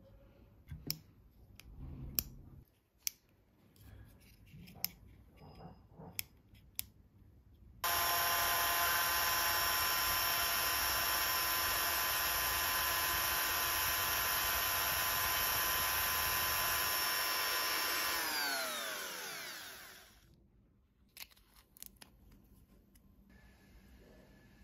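Handheld mini electric rotary tool drilling into a crab claw's shell. It starts suddenly and runs with a steady high whine for about ten seconds, then winds down with a falling pitch once it is switched off. A few sharp clicks and handling knocks come before it starts and a couple more after it stops.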